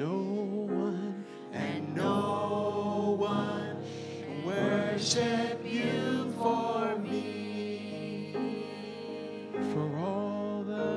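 Small group of men and women singing a slow gospel worship song with piano accompaniment.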